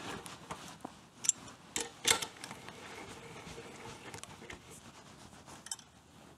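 Metal clicks and taps as a long steel mounting bolt is worked through the motorcycle frame and engine mounting lugs. A few sharp clicks come about one to two seconds in, followed by softer ticks and a brief light rattle near the end.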